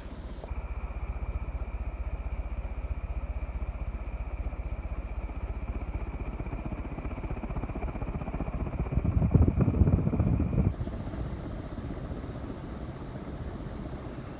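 Antique Hunter Turk ceiling fan with rewound motor running on high, its wooden blades moving a lot of air with a steady low rush that pulses rapidly as the blades pass. It is slightly out of balance. The rush grows louder for a couple of seconds about two-thirds of the way through.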